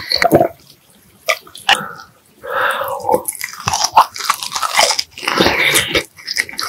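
Close-miked eating sounds: a person biting and chewing food in irregular mouthfuls, with a quieter pause about a second in.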